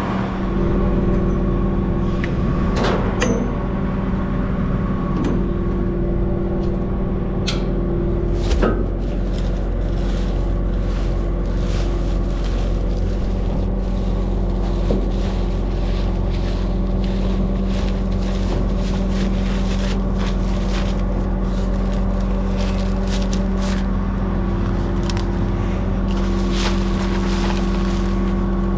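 Cotton stripper's diesel engine running steadily with a constant hum, with scattered clicks and rattles over it.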